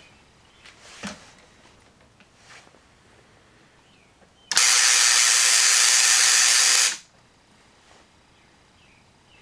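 Tesla coil firing: a loud, steady electrical buzz that starts suddenly about halfway through, lasts about two and a half seconds and cuts off abruptly.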